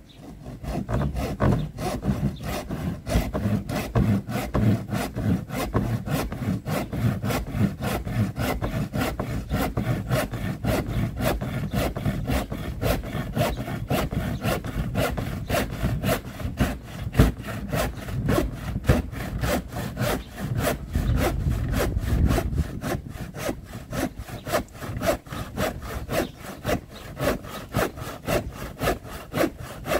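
Hand saw cutting through a shed's timber wall cladding in steady, rapid back-and-forth strokes.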